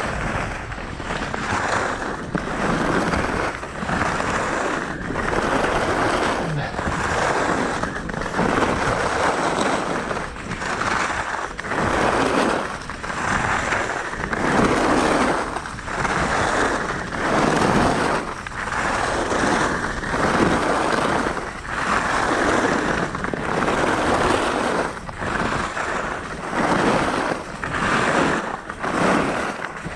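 Skis scraping and hissing over hard, tracked-up piste snow, the noise swelling and fading about once every second and a half as the skier links turns.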